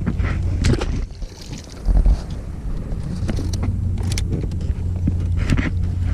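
Small fishing boat sounds: a steady low hum and rumble with scattered sharp clicks and knocks of handling, one short louder thump about two seconds in.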